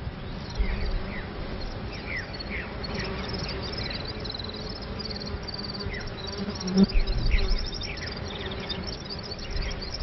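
Insects buzzing, with many short chirps and trills over a steady hum and a low rumble. A louder knock comes about seven seconds in.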